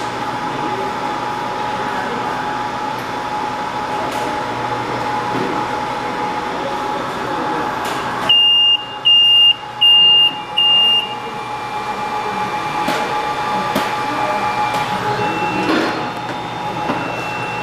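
SMD rework station running with a steady fan hum; about eight seconds in it gives four loud, high electronic beeps over about three seconds, the alert as its heating stage ends and the set temperatures drop to zero.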